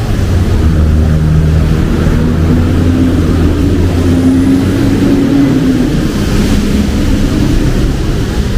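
Road traffic: a motor vehicle's engine running close by with a steady low hum, its pitch rising a little in the middle. A light hiss runs underneath and swells briefly near the end.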